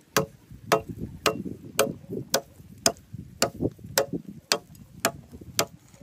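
Machete chopping wood on a wooden block in a steady rhythm, a sharp chop about every half second.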